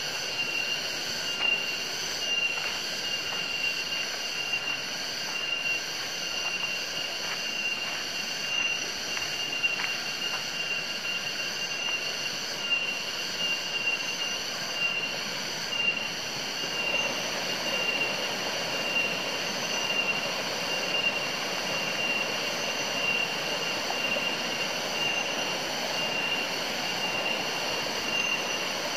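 Insect chorus: a steady high-pitched whine in a few layered pitches, continuous and unbroken.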